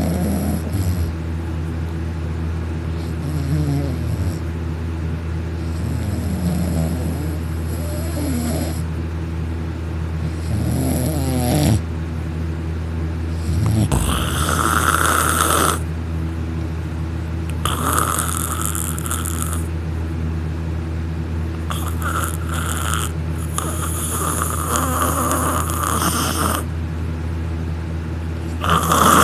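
A young man snoring loudly in heavy sleep brought on by sleeping pills, one snore about every three to four seconds, the later ones harsher and raspier. A steady low hum runs underneath.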